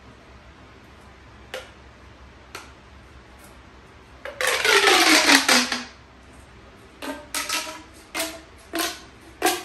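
Pink pop tube, a ribbed plastic fidget tube, being stretched. About four seconds in it gives a loud zipping sound that falls in pitch over a second or so. Later there is a string of about six short pops as it is pulled and bent.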